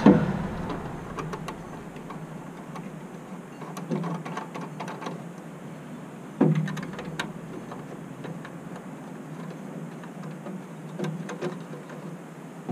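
Ratchet with a long extension clicking in short spells as the taillight's two mounting screws are driven in, with a few light knocks and one sharper knock about halfway through.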